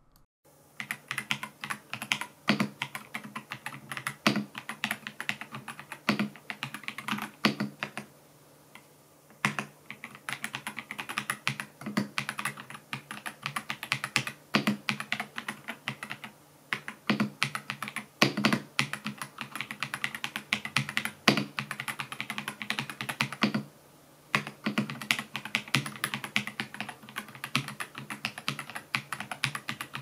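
Typing on an Ajazz AK820 Pro gasket-mounted mechanical keyboard with pre-lubed Ajazz Moon linear switches and PBT keycaps: a fast, continuous run of keystroke clacks. It pauses briefly twice, about a third of the way in and again past the three-quarter mark.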